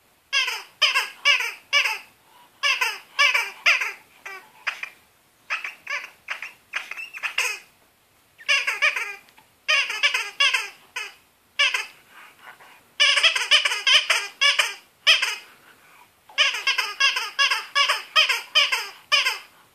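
Red rubber spider dog toy squeaking repeatedly as a French bulldog chews on it, in quick runs of short, high squeaks broken by brief pauses.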